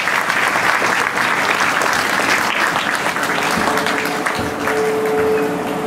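Audience applauding, the clapping thinning out about halfway through as a steady held note comes in.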